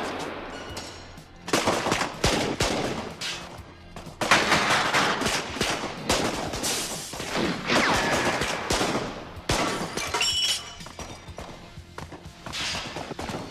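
Heavy film gunfire: several volleys of rapid shots in long bursts, with music underneath.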